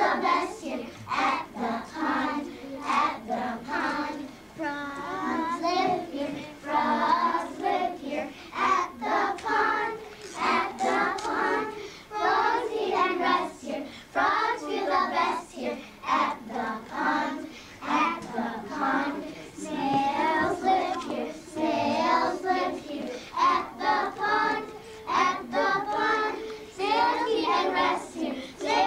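A group of kindergarten children singing a song together in unison, their voices wavering in pitch.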